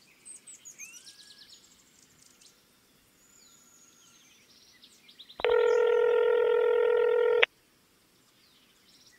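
Telephone ringback tone: one steady electronic ring of about two seconds, starting about five seconds in and cutting off sharply. Faint high chirps in the first couple of seconds.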